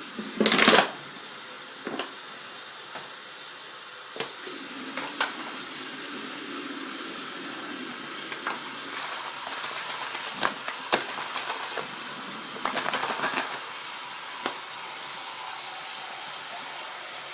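Tap water running steadily while a squeeze bottle is rinsed out, with scattered knocks and clicks of the bottle. There is a loud clatter about half a second in.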